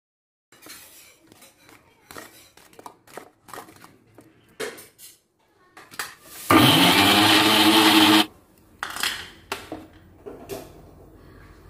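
Indian mixer-grinder (mixie) running once for just under two seconds, its motor pitch rising as it spins up, to grind cooked chutney ingredients in a small jar. Clinks and knocks of utensils and the jar come before and after it.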